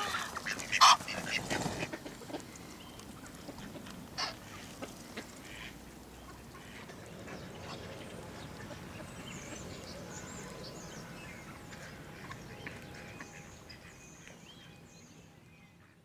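Mallard ducks quacking with goose calls, loudest in the first couple of seconds with another call about four seconds in. The sound then settles into a quieter steady outdoor background with faint high chirps, and fades out near the end.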